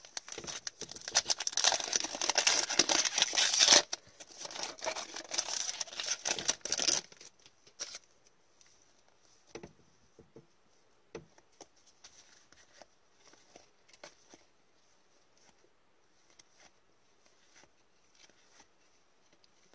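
Hockey card pack's foil wrapper being torn open and crinkled for about seven seconds, loudest near four seconds in. After that come only faint, scattered ticks and rustles of the cards being handled.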